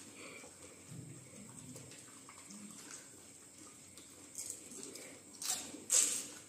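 People eating pani puri: mostly faint at first, then a few short wet slurping noises in the last two seconds as the spiced water is sucked from the filled puris.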